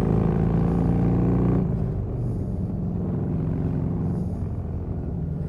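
Harley-Davidson motorcycle engine running at road speed under way, with wind and road noise. About a second and a half in, the engine note softens and gets a little quieter.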